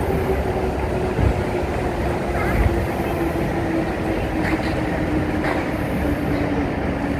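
Hokuriku Shinkansen E7/W7-series train running, its motors giving a steady whine that slowly falls in pitch over a low rumble.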